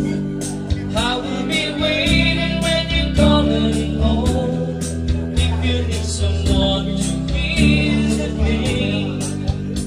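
A man singing into a microphone over recorded backing music with guitar, a strong bass and a steady beat.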